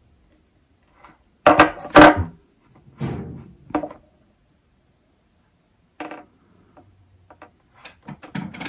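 Metal hand tools, pliers among them, knocking against a wooden tabletop as they are handled and set down: two loud knocks about a second and a half in, more knocks at about three and six seconds, and light clatter near the end.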